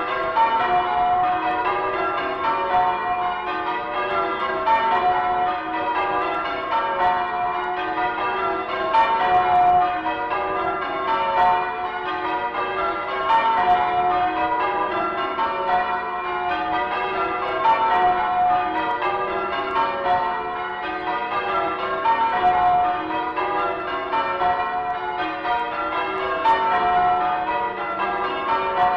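Church tower bells change ringing: a ring of bells struck one after another in rows that run down the scale, repeating in a steady, unbroken rhythm. Heard as a recording played from a 1967 His Master's Voice sound-effects vinyl record, with a dull top end.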